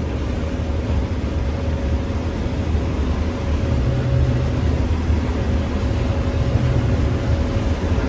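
Combine harvester running under load while harvesting corn, heard from inside the cab: a steady low engine and machinery drone with a faint steady whine above it.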